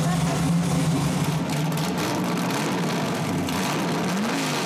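Sand buggy's big rear-mounted engine idling steadily, with a brief small rev that rises and falls near the end.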